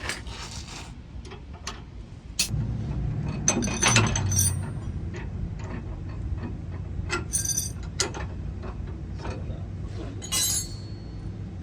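Metal hand tools and parts clinking and clattering in a string of sharp knocks, as sockets and wrenches are handled for work on a truck's sway bar bushings. A low steady rumble comes in after a couple of seconds.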